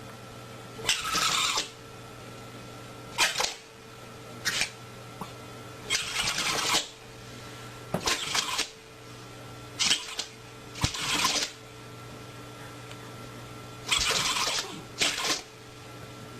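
Repeated short, breathy sneezes, about ten of them at irregular intervals.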